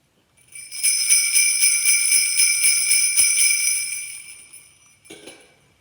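Sleigh bells, small metal bells on a wooden percussion instrument, shaken in a steady pulsing rhythm. They jingle for about three seconds, then die away.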